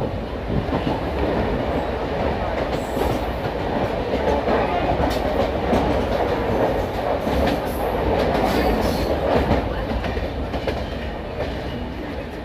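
Passenger train running on the tracks: a steady rumble with the wheels clacking over rail joints, louder through the middle and easing off near the end.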